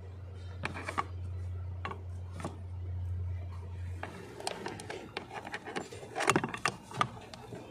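Hands working a blower motor resistor block and its plastic wiring connector in a tight spot under a dashboard: scattered plastic clicks, rubbing and scraping, with a quick run of sharper clicks near the end. A low steady hum underneath stops about four seconds in.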